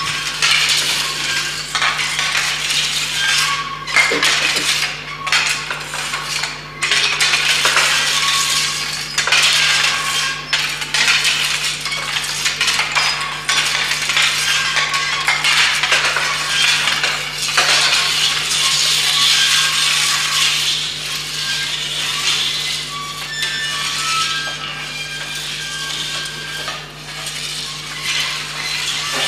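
Light metallic clinking and rustling, with short ringing touches, over a steady low electrical hum.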